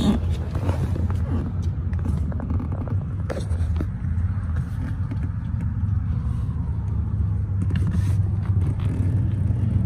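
Steady low hum of a car engine idling, heard from inside the cabin, with faint clicks and rustles of handling here and there.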